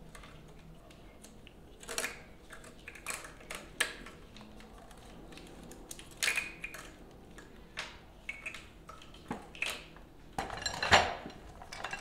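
Engine wiring harness being handled and routed over the engine: scattered clicks, rustles and light clatter of its plastic connectors and loom, loudest near the end.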